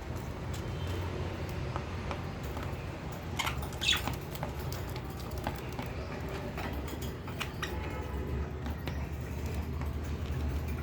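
Lovebirds eating millet grass: light pecking and rustling with a few short squeaky chirps, the loudest a little under four seconds in, over a steady low hum.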